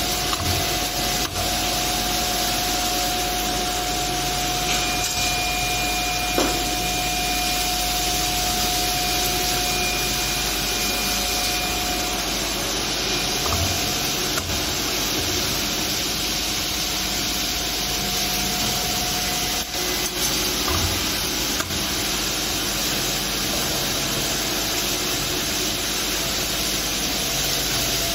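A CNC steel strip drilling and bending machine running: a steady whirring hiss with a constant hum, and a few sharp clicks and knocks from its tooling.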